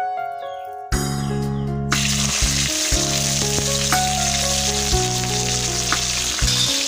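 Food sizzling as it fries in hot oil, starting about two seconds in, over background music with a heavy bass line.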